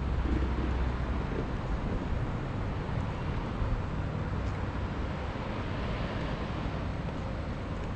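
Steady outdoor noise: an even hiss over a low rumble, the rumble heavier in the first second.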